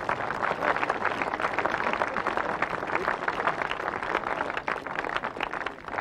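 Crowd applauding, a dense patter of many hands clapping that begins to thin out near the end.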